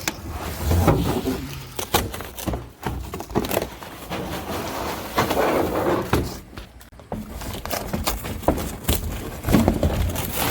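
Handling noises of new parts being unpacked by hand: rustling and scraping, broken by many irregular knocks and clicks.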